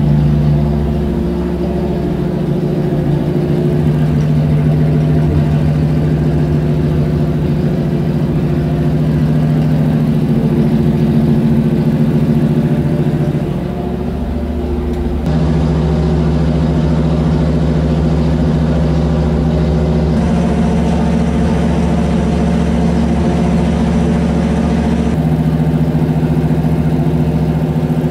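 Chevrolet 327 small-block V8 with cast-iron exhaust manifolds running at a steady speed on an engine dyno, warming up. It briefly dips in level about halfway through, then settles at a slightly different speed.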